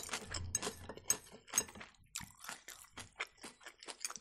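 Close-up mouth sounds of a person chewing food: moist, crunchy smacks and clicks in an irregular run of several per second.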